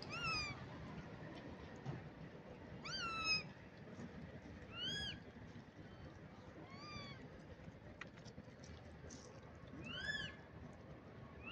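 Rhesus macaque giving five short, high-pitched calls a couple of seconds apart, each rising and then falling in pitch.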